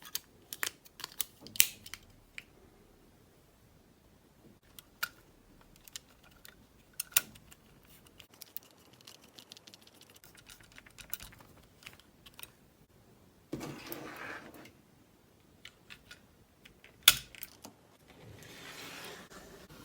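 Scattered sharp clicks and taps of small plastic parts being handled, with the loudest snaps just over a second in and near the end. A short stretch of rubbing or scraping noise comes about two-thirds of the way through, and another just before the end.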